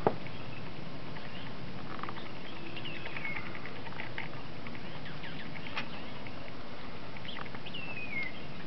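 Toy fox terrier bounding and nosing through deep snow: faint scattered crunches over a steady hiss. Two short high squeaks fall in pitch, one about three seconds in and one near the end.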